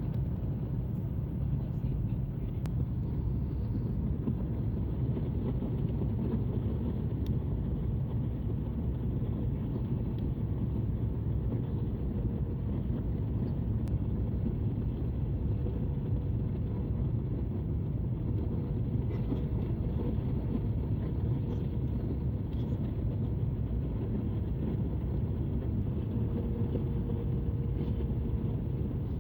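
Steady low rumble of an airliner's engines and airflow heard from inside the passenger cabin, with a faint steady hum over it.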